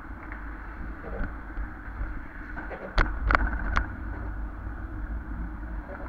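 Steady low rumble of wind on the microphone and tyre noise from a bicycle riding a paved bridge path beside highway traffic. About three seconds in come three sharp knocks in quick succession as the bike jolts over a seam in the path surface.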